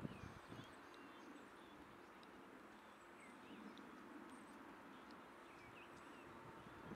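Near silence: a faint, steady outdoor hiss with a few faint, short bird chirps scattered through it.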